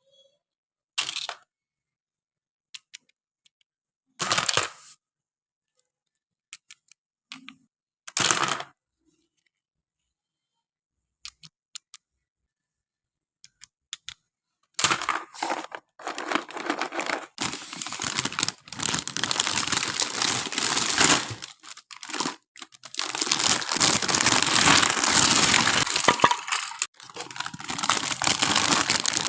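Packaging being handled: a few short rustles and clicks, then from about halfway on a long stretch of continuous crinkling and tearing, as of plastic wrapping being torn off.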